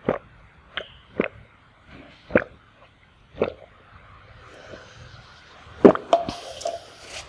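A person gulping a drink from a plastic cup close to the microphone, a swallow about every second. About six seconds in, a sharper knock and a short rustle.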